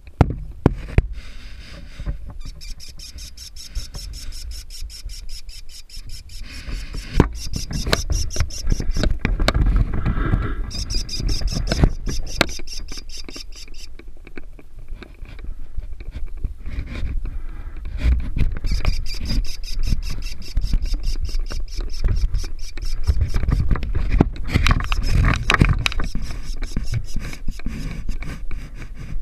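Camera knocking and scraping against the wooden nest box and its entrance hole, over a steady low rumble of handling and wind. Stretches of a high, shrill rasping come and go a few times.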